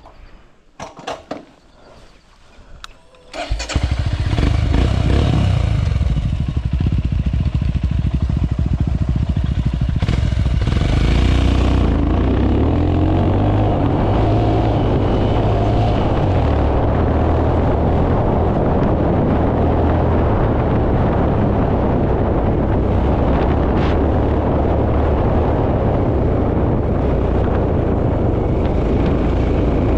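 Royal Enfield Himalayan's single-cylinder engine: a few clicks, then it starts about three and a half seconds in and keeps running.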